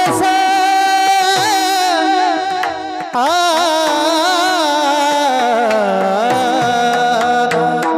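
Kirtan singing in a high voice: a long held note with vibrato breaks off about two and a half seconds in, then another long note that slides and wavers, sung without words over steady accompaniment.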